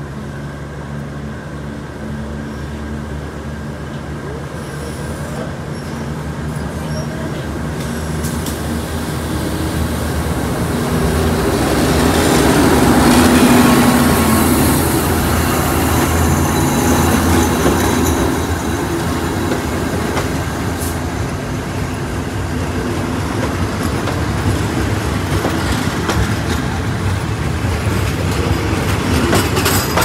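Alsthom diesel-electric locomotive no. 4119 approaching and passing close by, its engine growing louder to a peak about halfway through. Passenger carriages then roll past, with the wheels clattering on the track and a high squeal.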